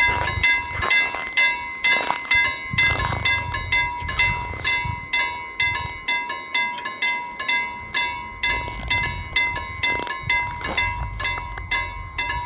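Railway level crossing warning bell ringing, a steady, even ding repeated about three times a second, the signal that the crossing is closing for an approaching train.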